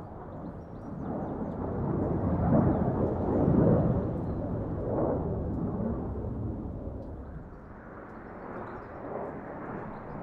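Fighter jet passing overhead: the engine noise swells to its loudest about three seconds in, then slowly fades, and a second rise begins near the end.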